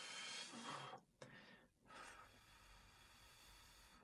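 Faint breathy exhale lasting about a second, like a smoker blowing out cigar smoke, followed by two fainter breaths; otherwise near silence.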